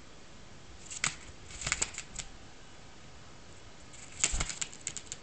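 Female common blackbird pecking at a strawberry held in the fingers: sharp beak clicks and taps, a single one about a second in, a short cluster a moment later, and a quicker run of pecks just after four seconds.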